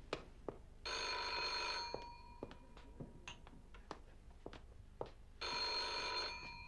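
Telephone bell ringing twice, each ring about a second long and about four and a half seconds apart, as a call comes through before it is answered.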